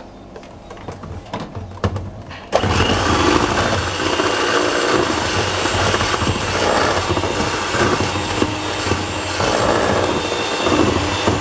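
Electric hand mixer switched on about two and a half seconds in, then running steadily as its beaters whip egg yolk into creamed butter in a stainless steel bowl for cookie dough. Before it starts, a few light clinks of a spoon against a bowl.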